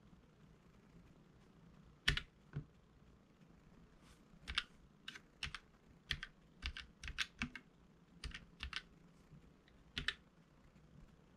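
Keychron K3 keyboard with low-profile Gateron Red linear switches being typed on: about sixteen separate key presses at uneven spacing, some in quick runs around the middle.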